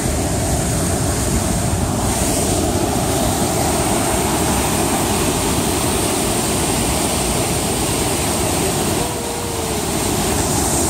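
A fast river rushing through rapids, a loud, steady wash of churning water.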